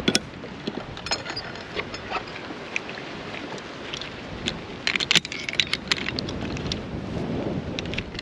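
Metal clicks and clanks of carabiners and a one-way pulley trolley on a steel zip-line cable, then a steady rush of the trolley rolling along the cable with wind on the microphone, swelling in the second half.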